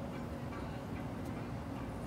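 Steady low rumble of background noise with a few faint ticks.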